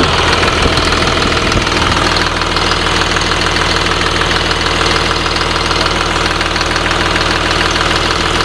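Caterpillar 3126 inline-six diesel idling steadily with its even diesel clatter, heard up close in the open engine bay. A sweet-sounding engine that the seller says has no blow-by.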